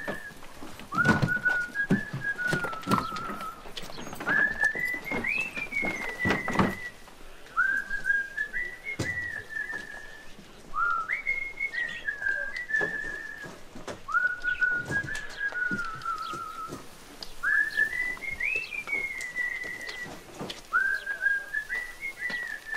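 A man whistling a tune in short, repeating phrases, each ending in a little warble. Irregular knocks and clatter sound underneath.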